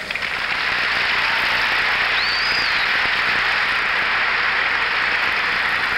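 Large convention crowd applauding and cheering steadily after a line of the speech, with one short whistle about two seconds in.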